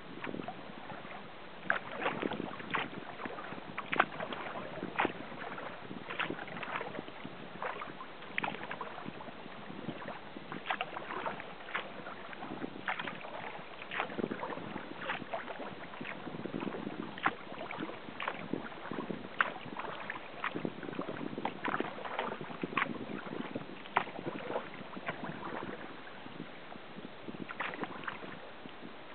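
Sea kayak paddling on calm water: the paddle blades dip and splash in an uneven, steady rhythm of short splashes and drips, about one a second.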